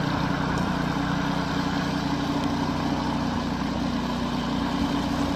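A vehicle engine running steadily at an even pitch, with no revving.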